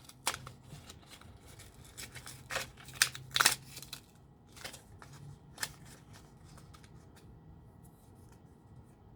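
Hands opening small product packaging: a few sharp crinkles and clicks during the first six seconds, the loudest about three seconds in, then only faint room tone.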